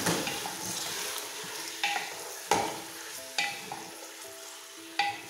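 Chicken pieces sizzling in hot olive oil with onion, garlic and bell pepper in a pressure cooker, being stirred with a spoon that knocks sharply against the pot about five times.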